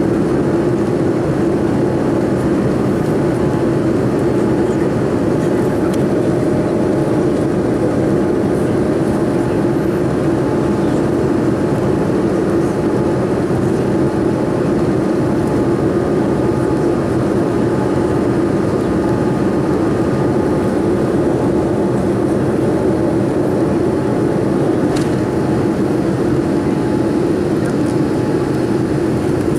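Boeing 787-9's GEnx engines running at takeoff thrust, heard from inside the cabin during the takeoff roll: a loud, steady noise with a strong low hum and a few faint steady tones.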